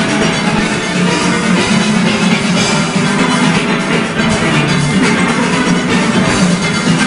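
Steelband playing a fast Panorama arrangement: many steelpans struck together, with drums and percussion driving the beat.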